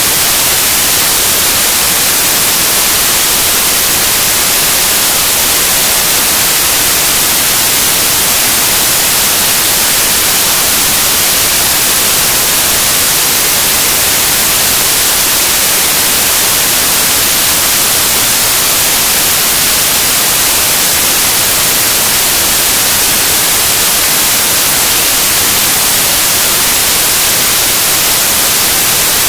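Loud, steady static hiss that does not change at all, heavier in the treble, covering any sound from the match.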